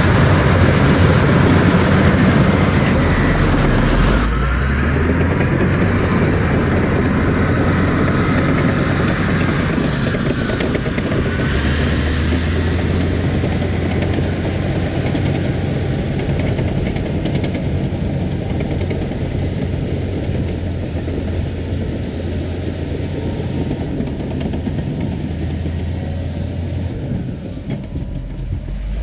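Engine of an earthmoving machine running steadily and loudly while pushing topsoil, its low note dropping and picking back up a few times as the load changes.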